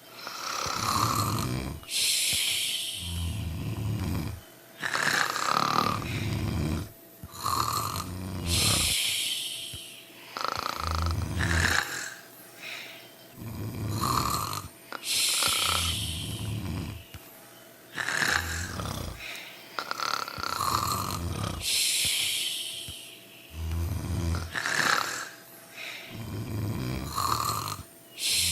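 Snoring from several sleepers at once: low snores every second or two overlap with a long, hissing, wheezy breath that comes round about every six or seven seconds.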